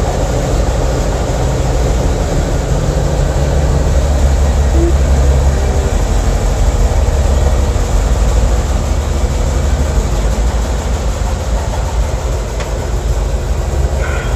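1952 Chevrolet's inline-six engine running steadily, swelling a little louder for a few seconds about three seconds in as the car is backed out of the garage.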